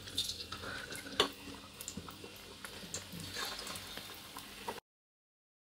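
Battered red chili pakoras faintly sizzling and crackling in hot oil in a frying pan as spoonfuls of gram-flour batter go in. The sound cuts off suddenly about a second before the end.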